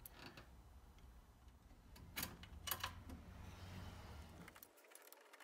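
Faint, scattered clicks and taps from a K&N cone air filter and its clamp being handled and fastened onto the intake adapter, over a low hum that cuts out near the end.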